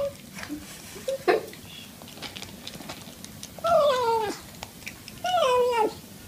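A cat meowing twice as it eats dry kibble. Each call lasts under a second and slides down in pitch, and a few faint crunches of kibble come about a second in.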